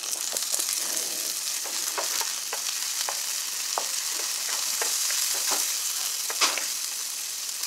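Vegetables sizzling in hot oil in a pan, with green peas just added, while a spatula stirs them, making scattered scraping taps and crackles over the steady hiss. One louder tap comes about six and a half seconds in.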